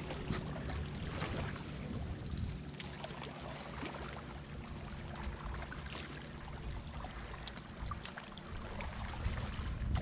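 Low, steady hum of a distant motorboat engine out on the lake, under a constant rumble of wind on the microphone.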